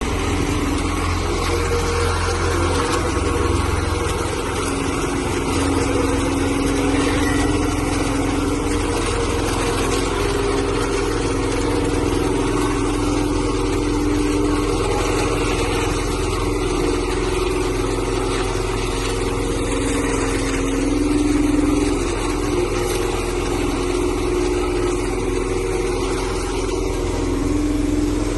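An engine running steadily, a low drone with a wavering hum above it and no sharp impacts.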